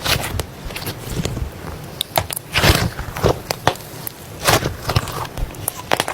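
Slime being worked by hand, with irregular pops and crackles, several a second.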